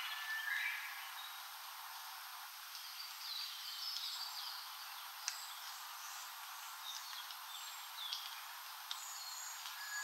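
Faint wild forest birdsong: many short, high chirps and down-slurred calls from several birds, with a brief two-note whistle just after the start. A single sharp tick sounds about five seconds in.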